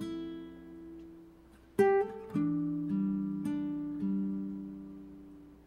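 Background music: acoustic guitar playing slow plucked chords that ring and fade, with fresh strums a little under two seconds in and again soon after.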